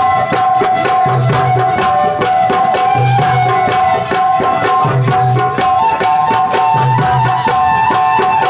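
Rajasthani chang dhamal folk music: chang frame drums beaten in a fast, steady rhythm, with a deep double beat about every two seconds under many lighter strokes. A held melody line runs over the drumming.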